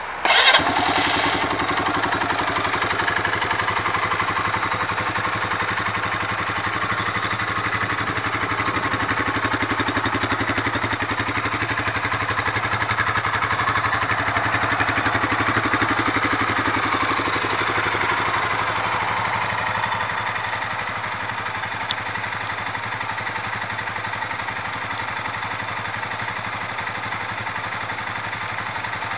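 Polaris Phoenix 200 ATV's small single-cylinder four-stroke engine starting up about half a second in, then idling steadily with an even, rapid putter. It settles a little quieter after about twenty seconds.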